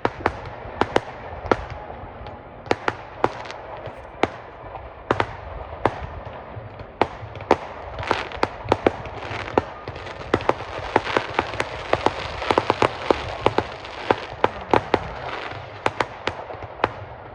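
Fireworks display going off: a steady run of sharp bangs at irregular intervals, which thicken into a dense volley of overlapping reports about ten seconds in.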